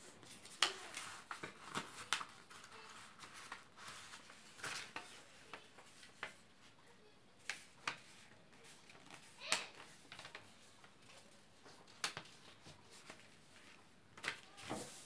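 Sheets of plain white paper being folded and creased by hand: scattered crisp crackles and rustles, with brief pauses between them.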